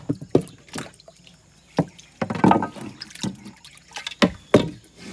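Fishing net being pulled out of river water: a quick, irregular run of splashes and drips, with a few sharp knocks.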